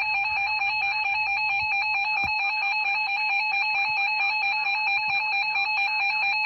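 Emergency Alert System attention tone: a loud, steady electronic alert sound of several pitches held together, sounding before a spoken weather warning.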